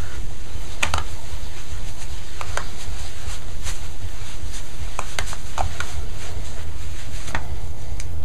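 Microfiber pad wiping cleaner over a bowling ball's surface: scattered short rubbing and clicking noises, a few squeaky, over a steady low hum.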